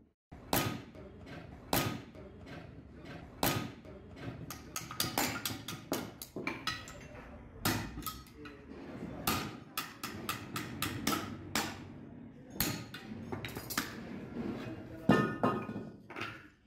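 Hand hammer striking a steel truck brake shoe and a punch set against it on the brake drum: irregular metal-on-metal blows, some in quick runs, each with a short ring. The old shoe is being knocked loose from the drum.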